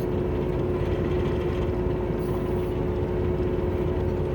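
Kubota U27-4 mini excavator's diesel engine running steadily, heard from inside the cab, with a steady whine held over the engine drone.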